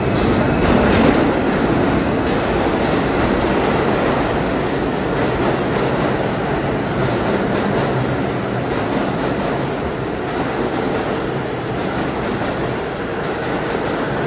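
New York City IRT subway train pulling out of the station past the platform: a loud, steady rumble of wheels on rail that slowly grows quieter.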